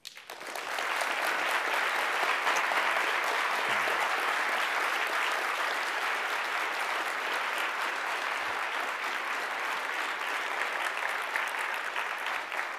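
Audience applauding: steady clapping that swells to full within about the first second and eases slightly near the end.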